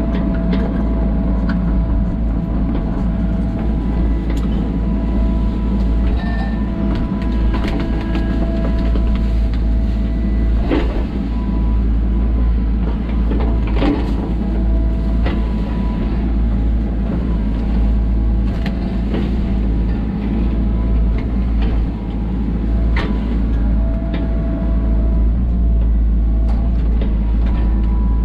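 SANY SY35U mini excavator working: its diesel engine runs steadily under load, with a hydraulic whine that comes and goes as the boom and bucket move. A few sharp knocks from the bucket digging in.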